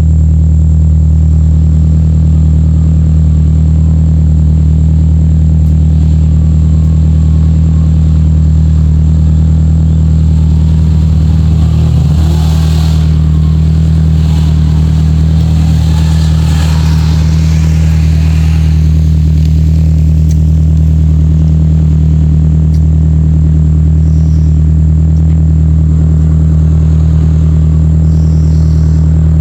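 A Perodua Kembara 4x4's engine runs loudly and steadily while driving off-road, with a steady low drone. About midway there is a spell of rougher, noisier sound for several seconds.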